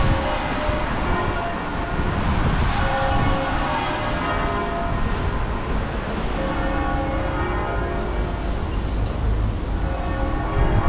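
Church bells ringing, many overlapping pitched strokes, over a steady low rumble.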